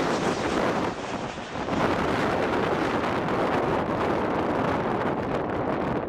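Strong wind buffeting the microphone over the jet noise of a Boeing 737-400 airliner flying overhead on landing approach.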